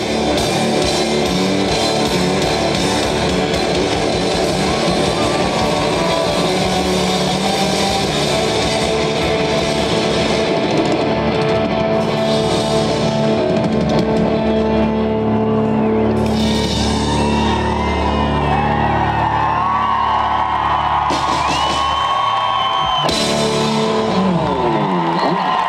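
Rock band music with electric guitars and drums, loud and steady. In the last third long held notes slide up and down above the band.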